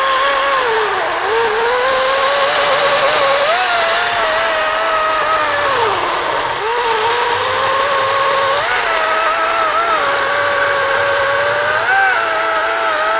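EGO 56V cordless electric chainsaw with a brushless motor cutting through a thick log: a steady high motor whine over the rasp of the chain in the wood. The whine sags in pitch a few times as the chain bites into the cut, then recovers.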